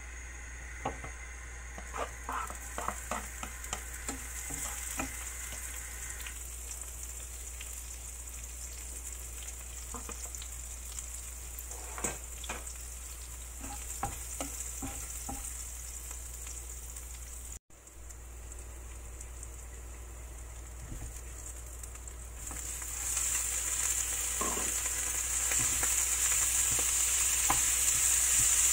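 Food sizzling in a frying pan on a gas stove while a wooden spatula stirs and scrapes against the pan. The sizzle grows louder in the last few seconds, over a steady low hum.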